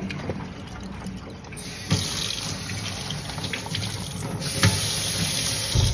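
Tap water running from a faucet and splashing into a stainless steel sink. The rush starts about one and a half seconds in, grows fuller near the end, and has a couple of light knocks.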